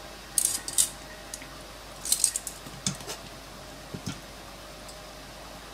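Battered raw chicken wings being laid by hand into a non-stick air fryer basket: a few clusters of short, sharp clicks and light clatters with soft, wet sounds, about half a second, two seconds, three seconds and four seconds in.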